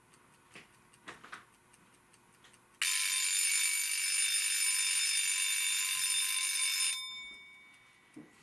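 Elka seven-jewel key-wound travel alarm clock's mechanical alarm going off about three seconds in: a steady high-pitched ringing buzz that lasts about four seconds and then stops, a faint ring fading after it. A few faint clicks come before it.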